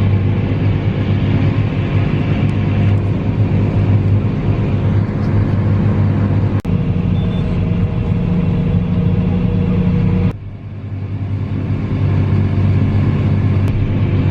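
Tractor engine running steadily, a low drone, while it pulls a grain drill. The sound changes abruptly about six and a half seconds in. About ten seconds in it drops sharply and then builds back up.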